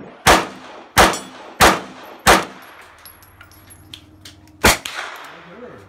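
Four shots from a 9mm 1911 pistol, about two-thirds of a second apart, each followed by a short ringing tail. Near the end comes a single shot from a VZ 58 rifle, which fires 7.62×39 mm rounds.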